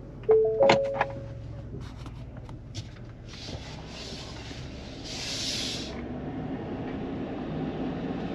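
Ford F-150 cabin: a three-tone dashboard chime sounds near the start, with a few clicks of the controls, then the truck moves off, its engine and tyre rumble growing louder, with bursts of hiss in the middle.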